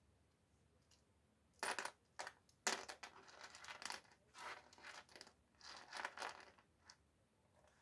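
Small flat wooden puzzle pieces clattering onto a pile on a table: a few sharp clacks starting about one and a half seconds in, then lighter clicking and sliding as a hand sorts through the pieces, dying away near the end.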